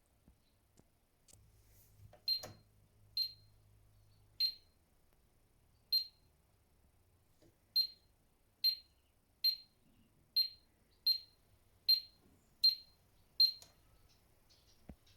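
Miele W1 washing machine control panel beeping: about a dozen short, high beeps at uneven intervals, like key-press beeps as the program and options are selected.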